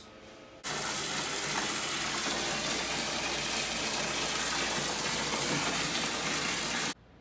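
Water gushing steadily for about six seconds, starting and stopping suddenly.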